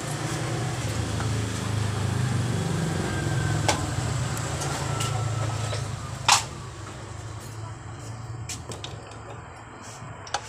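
A motor vehicle engine running steadily with a low hum, dropping away about two-thirds of the way in. A sharp click comes about a third of the way through, and a louder click just after the middle.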